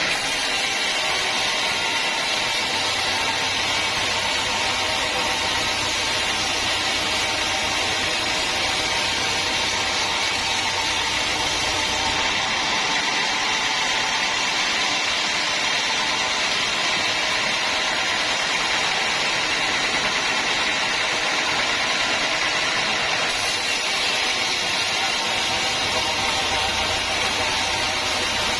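Sawmill machinery running steadily, a continuous mechanical drone and whine. The very highest part of the sound drops away for a stretch in the middle and then returns.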